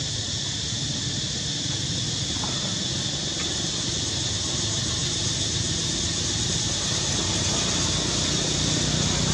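Steady high-pitched buzzing drone of cicadas, over a low rumble.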